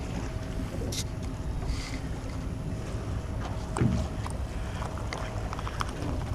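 Steady low rumble of wind and water around a small boat, with one thump nearly four seconds in and a few light clicks after it.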